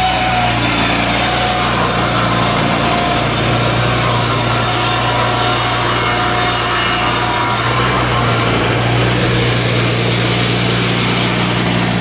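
Wood-Mizer EG200 board edger running under load, its saws cutting the bark edges off a slab, over a steady low machine hum.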